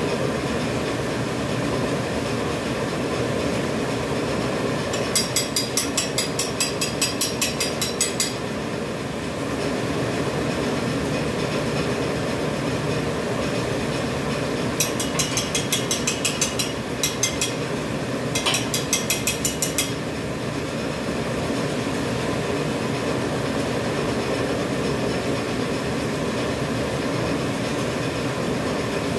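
Dental mask production machine running, a steady mechanical hum and clatter. Three times it adds a spell of rapid, evenly spaced high-pitched clicking, about four clicks a second, lasting a few seconds each.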